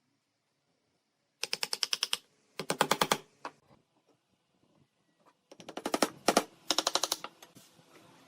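Four short runs of rapid, sharp mechanical clicks, about a dozen a second, each lasting under a second, from a woodworking tool.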